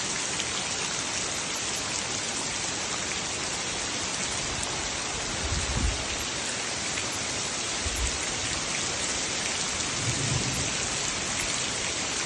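Heavy tropical downpour: a steady, dense hiss of rain pouring onto a muddy yard and puddles. Brief low thumps come about six and eight seconds in.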